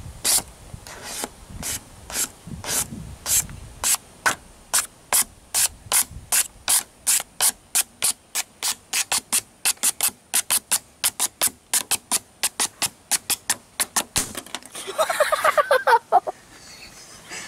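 A plastic card swept over a vinyl sticker on a car body to push out air bubbles: a long run of short scraping swishes, quickening from about two to about four a second. Near the end the strokes stop and a brief squeaky, voice-like sound follows.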